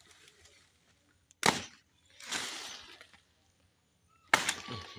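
A blade chopping into a fallen plantain stalk: two sharp chops about three seconds apart, with a brief rustle between them.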